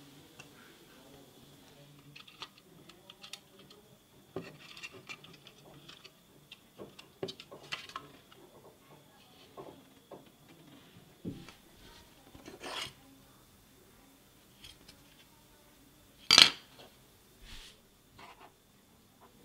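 Small clicks, taps and rubbing of electronic parts and a hard plastic charger housing being handled and set down on a wooden workbench, with one louder sharp knock a few seconds before the end.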